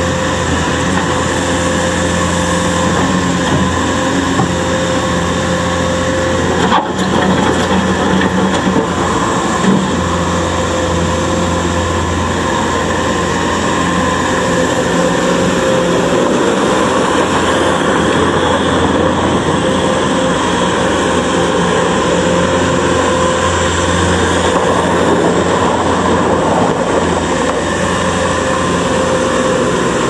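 Bobcat S570 skid steer loader's 61 hp Doosan diesel engine running steadily while the machine works its bucket and drives over gravel.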